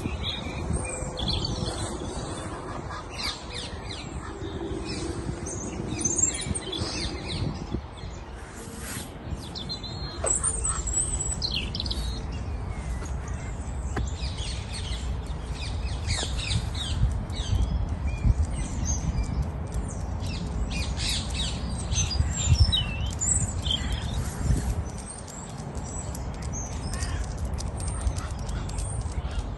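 Birds chirping and calling in the park trees: many short high calls, one after another, over a low steady rumble.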